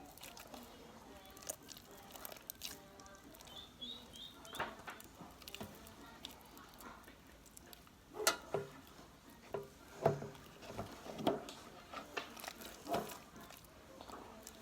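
Slime being squished and worked by hand: irregular wet, sticky clicks and pops, more frequent and louder in the second half.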